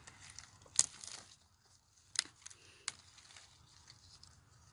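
Faint handling noise: light rustling with a few short, sharp clicks, the clearest about a second in.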